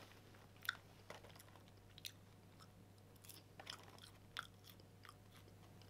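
Faint, irregular crunches and rustles of a man eating popcorn from a paper box, over a low steady hum.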